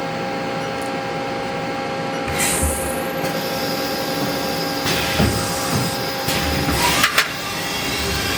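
1996 Haas CNC lathe running a part program with the tool stood off and the coolant drained, so it cuts only air: a steady motor hum with several bursts of whirring as the spindle and axes move, and a sharp click about seven seconds in.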